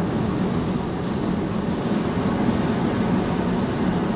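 Steady road noise inside the cabin of a Tesla Model Y Performance at highway speed on a rain-wet interstate: tyres on wet pavement and wind, with no engine sound from the electric drivetrain.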